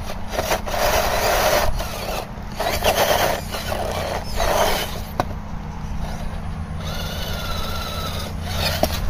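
Radio-controlled crawler climbing over logs: its electric motor and gears whine in short bursts of throttle while the tyres scrabble and grind on the bark. Later the whine becomes steadier.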